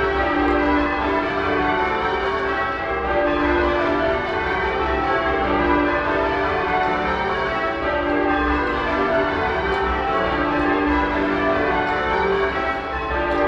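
Church bells being rung in changes: a full ring of tower bells swung by ringers on ropes, strokes tumbling over one another in a steady, unbroken stream, heard from the ringing chamber below the bells.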